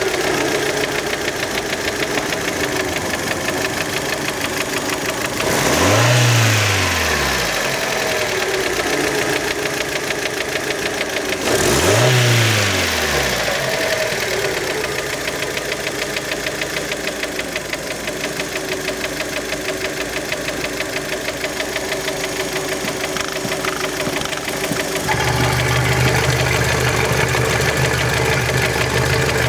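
Warm Fiat Panda engine idling with a rapid knocking, blipped twice so the revs rise and fall back. Near the end the engine note changes to a steadier, stronger low hum.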